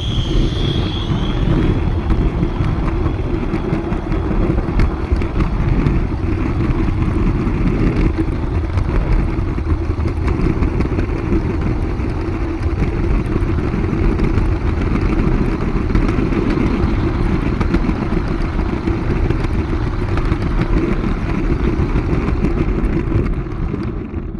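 Steady rolling rumble and clatter of a small garden-railway train's wheels and running gear on 45 mm gauge track, heard from a camera riding on the train. A brief high squeal at the start fades out about a second in.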